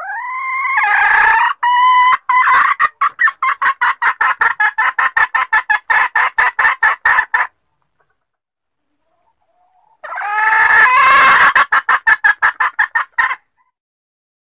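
Junglefowl hen cackling. A rising opening call runs into a fast string of clucks, about five a second, for several seconds; after a pause of about two seconds a second, shorter bout follows.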